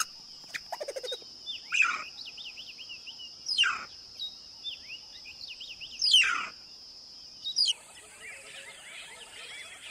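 Wild bird calls over a steady high buzz: rapid repeated chirping notes, cut by three loud calls that sweep downward, about two seconds apart. Near the end the buzz stops and a busier chorus of chirping birds takes over, over a steady high hiss.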